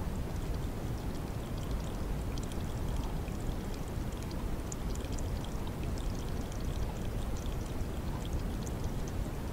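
A steady rushing noise, strongest at the low end, with faint scattered high ticks through it.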